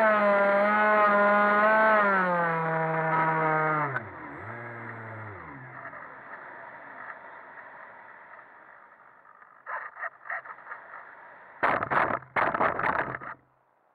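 Multiplex Easy Star 3's electric pusher motor whining under power, dropping in pitch and cutting out about four seconds in, followed by the hiss of air over the microphone as the plane glides. Near the end, the foam plane belly-lands on ploughed soil, scraping and bumping in two rounds and stopping abruptly.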